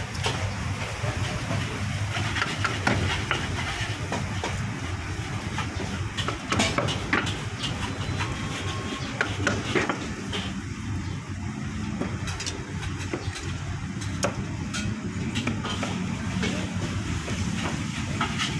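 Meat cleaver knocking on a wooden chopping board in short, irregular strokes as pork is cut, over the steady hum of road traffic.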